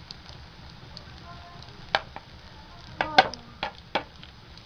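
Slotted metal spatula clanking against a metal frying pan while turning pakoras in hot oil: one knock about halfway, then a quick run of four near the end, the loudest ringing briefly. Frying oil sizzles steadily underneath.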